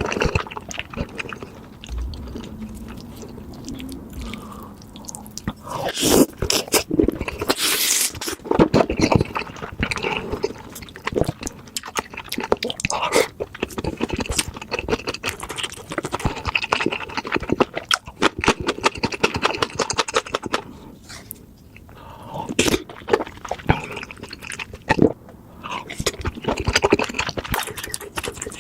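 Close-miked eating of spicy noodles: chewing and slurping, with many short wet mouth clicks and smacks and brief pauses between mouthfuls.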